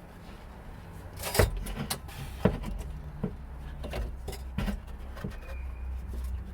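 Knocks and clatter from working a rubber exhaust mount back onto its hanger under the car, a handful of sharp knocks with the two loudest about a second and a half and two and a half seconds in, over low rumbling handling noise.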